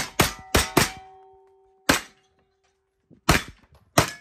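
AR-style rifle firing: four quick shots in the first second, then three single shots spaced about a second apart. After the first string a steel target rings on with a steady clang that lasts about two seconds.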